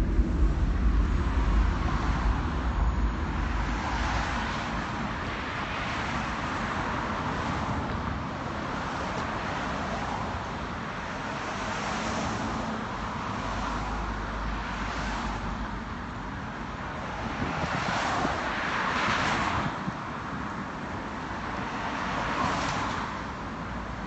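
Road traffic: cars passing one after another, each rising and fading in a swell of tyre and engine noise. A low rumble underlies the start and returns about midway.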